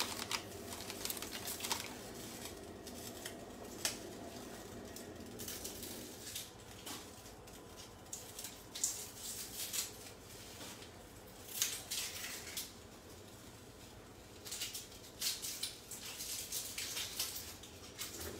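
Scattered light scrapes, clicks and rustles of an onion being peeled and trimmed with a knife, over a faint steady hum.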